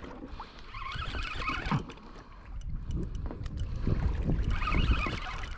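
Water washing against a kayak hull, with wind rumbling on the action camera's microphone; the splashy hiss swells twice, about a second in and again near the end.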